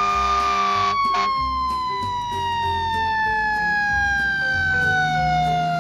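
Fire engine siren held at a steady high pitch, then winding down in one long, slow fall in pitch.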